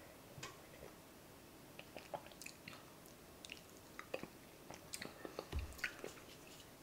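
Faint mouth sounds of drinking and swallowing orange juice with pulp: scattered small wet clicks and smacks, more frequent in the second half, with a soft low thump about five and a half seconds in.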